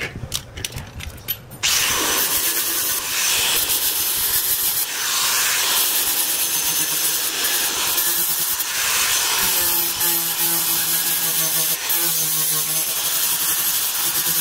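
Angle grinder with an abrasive disc starts after a few light clicks and grinds the paint off a car's dented steel door panel down to bare metal, a steady whirring grind.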